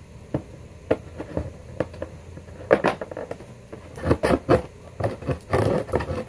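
Cardboard slider of a homemade vending machine made from an ice-cream box, pulled and pushed by hand in its slot: scraping and rubbing cardboard with a number of clicks and knocks.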